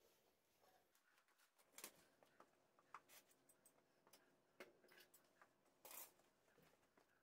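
Faint, irregular crackling and ticking from freshly poured molten copper in open ingot molds, with flames burning along the mold edges. Near silence otherwise, with the two sharpest crackles about two seconds in and near the end.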